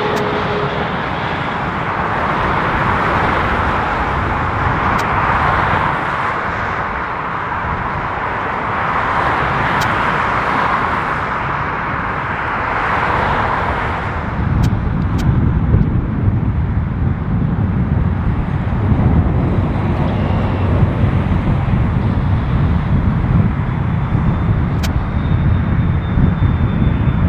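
Boeing 777-300ER's GE90 jet engines passing low on landing approach: a broad rushing jet roar with a falling whine at the start. About fourteen seconds in it changes to a deep low rumble of the jetliner on its landing roll.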